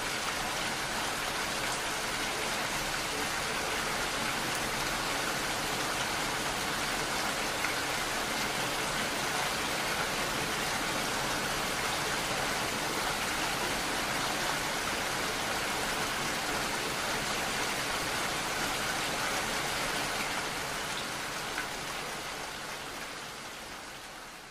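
Steady rainfall, an even hiss of many drops, fading out over the last few seconds.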